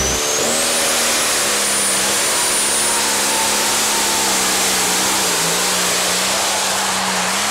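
Pulling tractor's engine running flat out at a steady pitch, with a high whine that rises over the first second and then holds.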